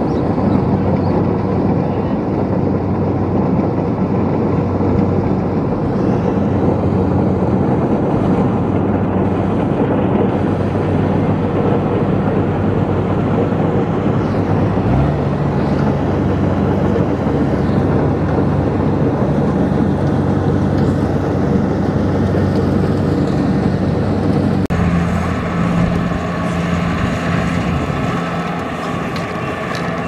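Kubota DC-70 combine harvester's diesel engine running steadily at close range. The engine note shifts abruptly about halfway through and again near the end.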